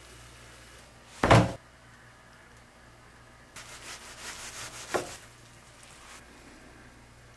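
A heavy thump about a second in, then a kitchen knife slicing down through a thick rolled egg omelet, ending with a sharp knock of the blade on the cutting board.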